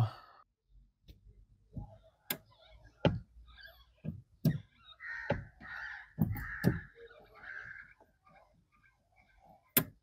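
Honda City clutch pedal assembly, freshly greased and reinstalled, worked by hand: several sharp pops, then drawn-out creaks from about five seconds in. The creak is still there after the repair; the owner puts it down to play in the pedal's middle bushing.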